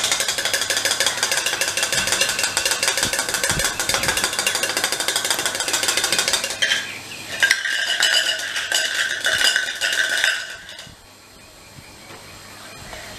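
Plastic baby rattle shaken fast, a dense jingling rattle for about six and a half seconds. After a short pause it is shaken again with a steadier ringing tone, and it stops about ten seconds in.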